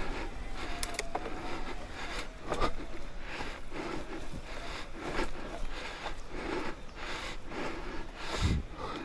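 Propain Ekano 2 AL e-mountain bike ridden over a trail: tyres scraping and rustling over the dirt in repeated bursts, with an ongoing rattle from somewhere on the bike and some clicks. A steady low rumble of wind runs under it.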